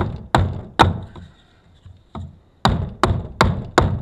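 Hatchet chopping into the end of a 2x2 treated pine stick, taking off a little at a time to shape a peg. The sharp chops come about two or three a second, pause for about a second and a half in the middle with one lighter chop, then resume.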